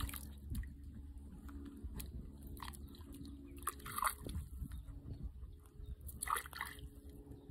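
Dog splashing in a shallow stream while biting and pawing at a submerged tree root, with scattered short splashes and crunches and louder splashes about four seconds in and again about six seconds in.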